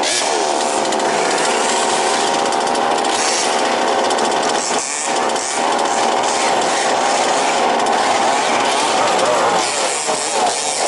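Several 1/5-scale petrol RC cars running their small two-stroke engines together, a steady buzzing with the pitch rising and falling as the throttles are blipped.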